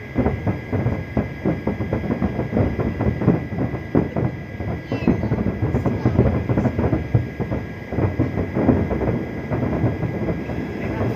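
Fireworks going off in a rapid, continuous barrage of bangs and crackles, many each second.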